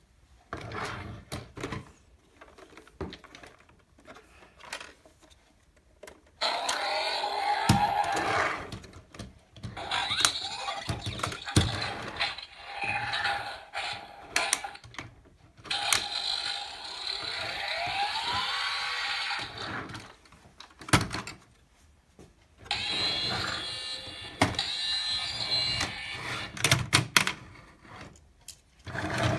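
Clicks of a plastic toy being handled, then several stretches of the toy's electronic sound effects from its small built-in speaker, with steady tones and a rising whistle-like glide.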